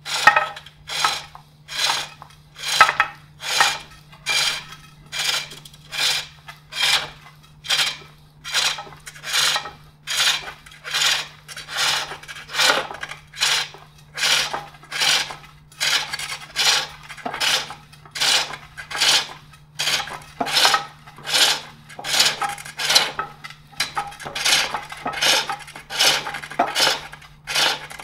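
A hook tool cutting a wooden bowl blank on a foot-powered pole lathe: a rasping cut on each downstroke of the treadle, with quiet gaps on the return strokes, in an even rhythm of a little more than one cut a second.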